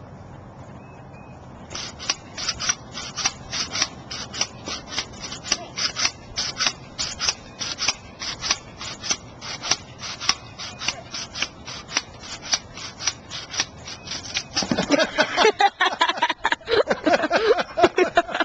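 Pogo stick bouncing, its spring giving sharp metallic clicks in a steady rhythm of about three or four a second. The clicking stops near the end, and voices and laughter take over as the rider falls.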